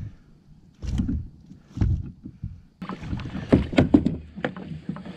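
Handling noise on a kayak as a big pickerel is brought in from the net: a few dull thumps against the kayak, then from about three seconds in a quick run of knocks, clicks and rustling.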